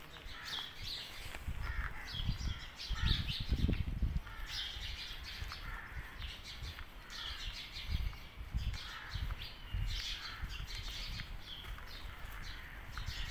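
Birds chirping repeatedly, with low rumbling noise on the microphone that is loudest about three to four seconds in.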